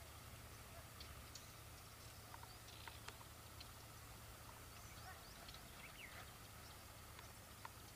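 Faint, scattered bird chirps and short calls, some sliding quickly in pitch, over a low steady hum.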